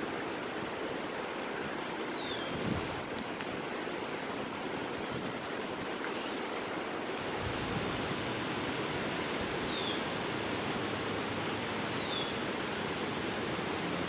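Shallow creek running over rocks: a steady rush of water. Three short, high, falling chirps cut through it, about two, ten and twelve seconds in.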